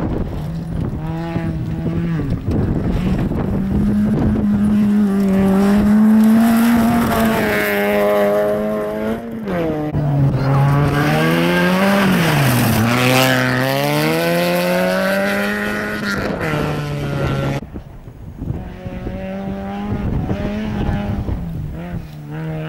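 Small rally hatchbacks' petrol engines revving hard at full throttle on a gravel stage. The pitch climbs and then drops sharply at each gear change, about ten seconds in and again soon after. Near the end the sound cuts to another car whose engine is quieter.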